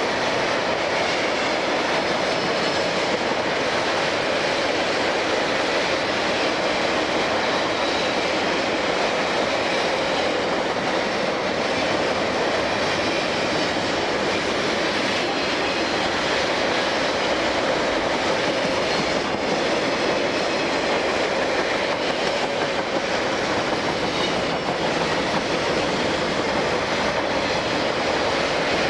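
Freight train of loaded flatcars rolling past: a steady, unbroken noise of steel wheels running on the rails.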